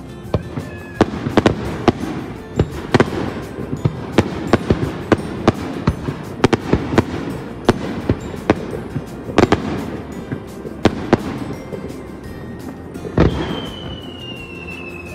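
Fireworks display: a rapid, irregular string of bangs and crackles from bursting aerial shells, with a long whistle falling slowly in pitch starting about two seconds before the end.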